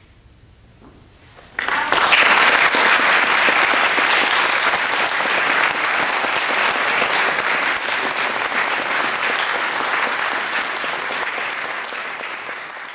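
Audience applauding. The clapping breaks out suddenly about a second and a half in, holds dense and steady, and eases slightly near the end.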